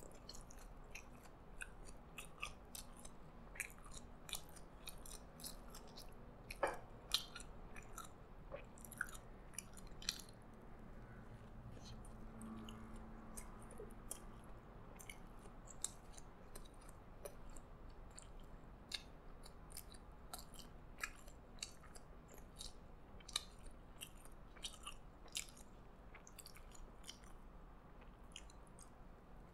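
A person chewing and biting into a McDonald's chicken Prosperity Burger, with many small wet mouth clicks and smacks. Two louder ones come about seven seconds in.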